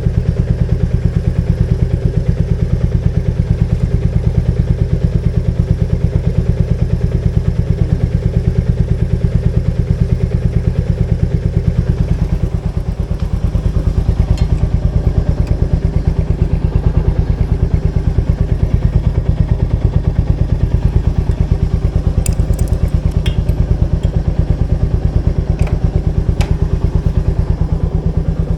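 Royal Enfield Meteor 350's single-cylinder engine running steadily, an even thumping beat. A few light clicks come in the last third.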